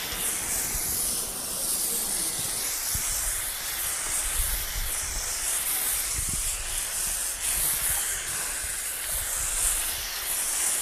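High-pressure washer spraying touchless foam shampoo through a foam bottle on the gun, a steady hissing spray that swells and dips as the jet is swept. A low rumble runs underneath.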